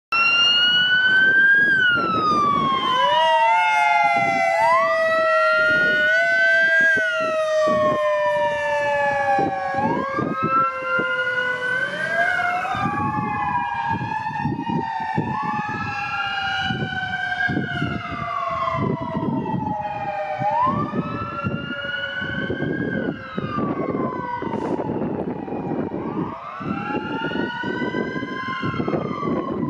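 Fire rescue truck's electronic sirens wailing in long rising and falling sweeps, a Smart Siren overlaid with the deep, slowly falling tone of a Howler low-frequency siren. The truck is running with lights and siren on an emergency response.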